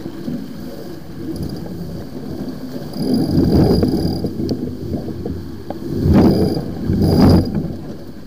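Wind buffeting the microphone and water rushing past a sailboat's hull as it sails, swelling into louder gusts about three, six and seven seconds in.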